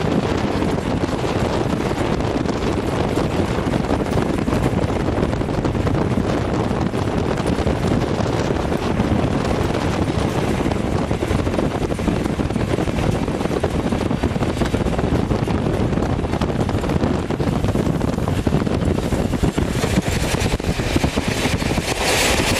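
Wind buffeting the microphone over the steady rumble of a moving steam train. A brighter hiss swells near the end.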